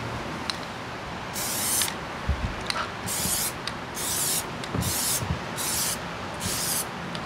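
Plasti Dip aerosol can spraying in six short hissing bursts, each about half a second long, at a steady rhythm.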